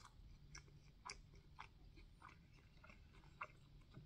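Faint chewing of soft food, with small wet mouth clicks about every half second.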